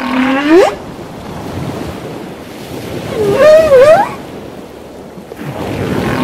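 Humpback whale song: three long pitched calls over a wash of sea and wind. The first rises at the start, the second wavers up and down about three seconds in, and another rising call comes near the end.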